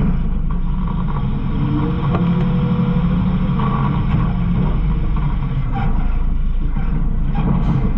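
Garbage truck engine running steadily, heard from inside the rear hopper, with scattered rattles and knocks.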